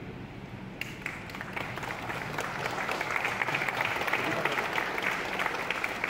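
Audience clapping, starting abruptly about a second in, building to its loudest midway and then easing off.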